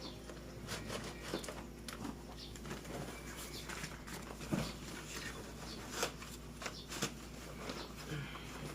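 Scattered light clicks and knocks, a few of them sharper, over a low steady hum.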